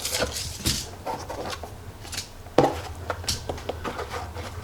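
Action figure parts and packaging being handled and set down on a table: scattered light clicks and knocks with short rustling, the loudest knock about two and a half seconds in.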